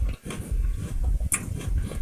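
Chewing food close to the microphone, with uneven mouth noises and a sharp crunch about a second and a half in.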